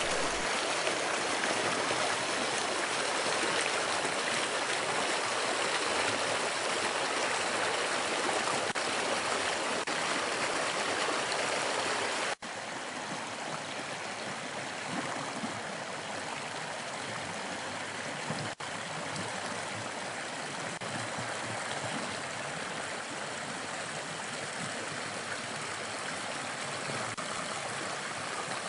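Small mountain creek rushing and splashing over rocks and low step-downs in a steady wash of water. The sound breaks off for an instant about twelve seconds in and comes back a little quieter, with another brief break around eighteen seconds.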